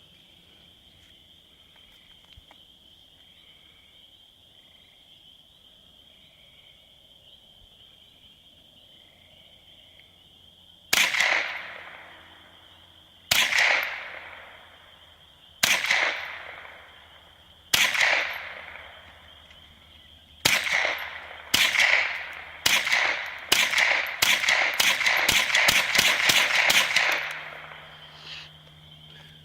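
ISSC MK22 semi-automatic .22 LR rifle firing. About 11 s in come single shots roughly two seconds apart, quickening to rapid fire of several shots a second that stops about 27 s in.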